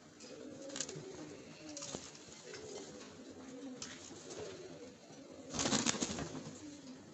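Frillback pigeons cooing in low, wavering, repeated coos. A brief, louder rustling noise comes about a second before the end.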